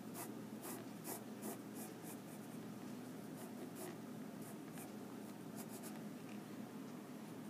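Pencil scratching on paper in a series of faint strokes as lines are drawn.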